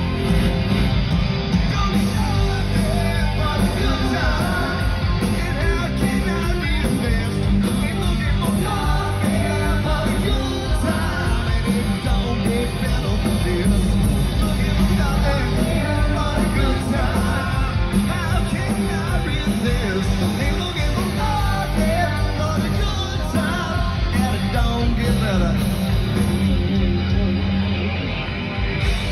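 Live rock band playing loudly, with a vocal line over heavy, distorted bass and drums, recorded close up in a loud room.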